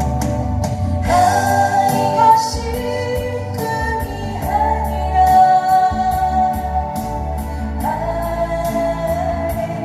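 A woman singing long, held notes over guitar accompaniment with a steady beat.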